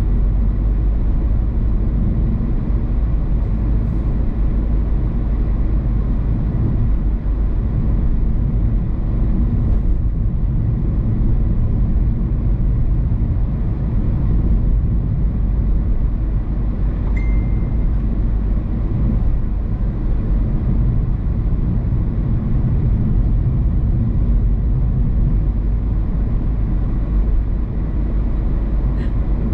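Steady low rumble of a car driving on the road, tyre and engine noise. There is a brief high tone about 17 seconds in.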